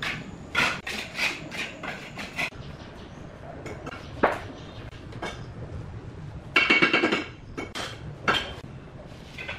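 Bricklaying: a steel trowel tapping and scraping on clay bricks bedded in mortar. It opens with a run of sharp clinks, about three a second, then gives single knocks and a short loud clatter of brick on brick about two-thirds of the way through.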